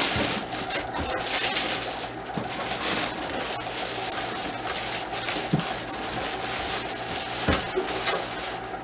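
Clear plastic shipping bag rustling and crinkling as it is pulled off a printer and bunched up by hand.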